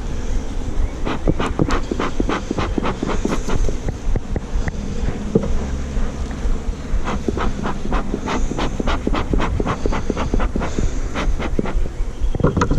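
Bee smoker bellows being pumped in quick runs of sharp puffs, about four a second, with two pauses. Bees hum around it.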